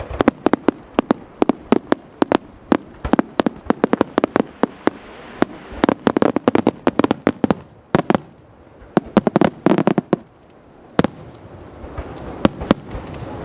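Aerial fireworks display: rapid volleys of sharp bangs and crackles, thinning to a brief lull about ten seconds in before more bursts follow.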